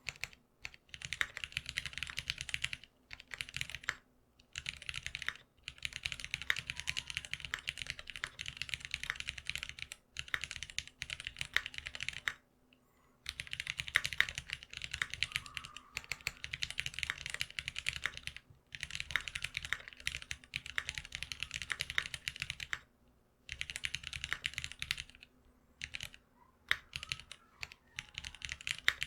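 Typing on a GeonWorks F1-8X custom mechanical keyboard with lubed Cherry Black linear switches: quick runs of keystrokes broken every few seconds by brief pauses, the longest about thirteen seconds in.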